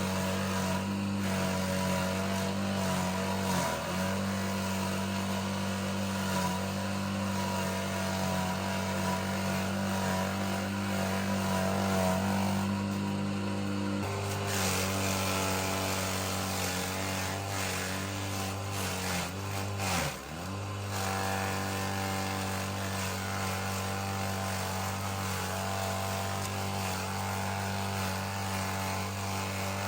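A machine's motor running steadily, its pitch dipping briefly twice: near four seconds in and again about twenty seconds in.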